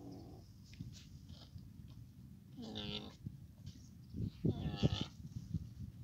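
Camel calf calling twice, each call lasting about half a second, with the second louder.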